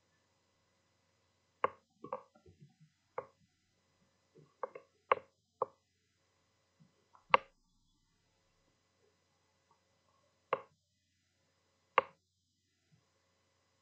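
About ten sharp knocks and clacks at uneven intervals, a few bunched together about two seconds in, with a faint steady hum beneath.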